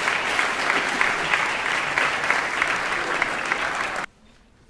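Audience in a hall applauding and cheering with many overlapping claps, stopping abruptly about four seconds in.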